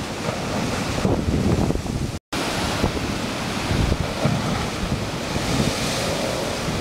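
Storm surf breaking and churning against a concrete sea wall, with strong wind buffeting the microphone. The sound cuts out briefly about two seconds in.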